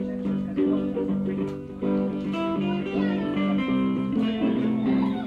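Guitar playing close by, plucked and strummed, in a continuous run of changing notes and chords.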